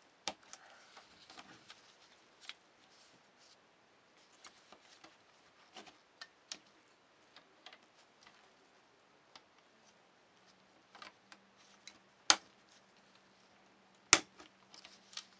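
Scattered light clicks and taps of plastic parts as a photocopier drum unit's charge roller and cleaning roller are handled and seated in their plastic holder, with two sharp, louder clicks near the end.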